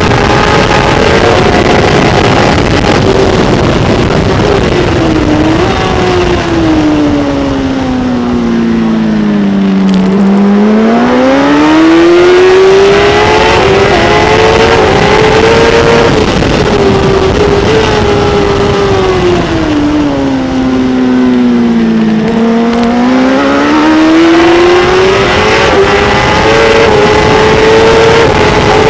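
Kawasaki ZX-10R superbike's inline-four engine running hard at racing speed, with constant wind rush over the onboard microphone. Twice the revs sink smoothly and then climb back up, with small steps at the gear changes.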